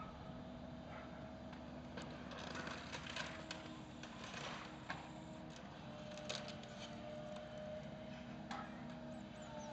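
Excavator engine running steadily while its demolition grab tears at a roof, with irregular cracking and knocking of breaking timber and debris, a cluster between about two and five seconds in and single sharper knocks later.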